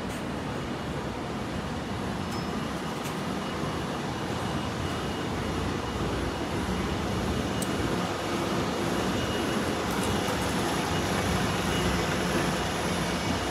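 Steady city street traffic noise, with a bus's engine running close by, growing a little louder in the second half.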